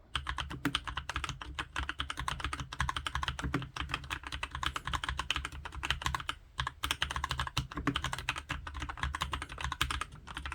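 Fast, continuous typing on a mechanical keyboard with lubed tactile brown switches: a quick stream of keystroke clicks and clacks, with a couple of brief pauses.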